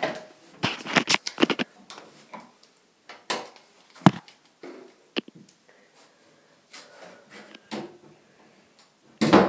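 Irregular knocks, taps and rustles of a handheld camera device being moved and handled, with a louder knock near the end.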